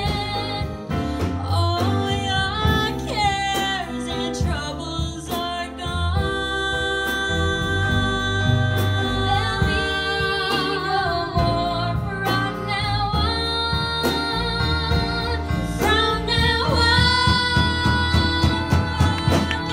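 Two female voices singing a song together into microphones, backed by a small live band with double bass and drums; the bass plays a steady line of low notes under the voices.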